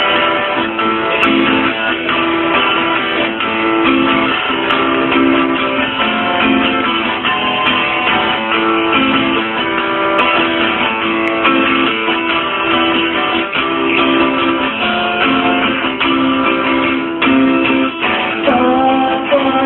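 Acoustic guitar played solo, chords ringing in a steady, repeating pattern: the instrumental opening of a song.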